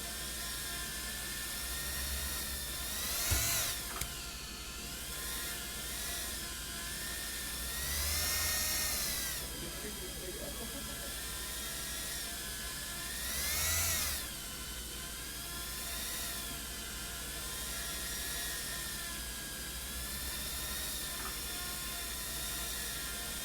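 Multirotor FPV drone's electric motors whining, the pitch rising and falling with the throttle, with three louder surges and a sharp click near the first.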